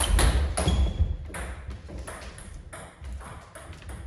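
Table tennis ball clicking sharply off bats and table during a rally: a quick run of clicks in the first second, then fewer, scattered clicks as the point ends, with low thuds underneath.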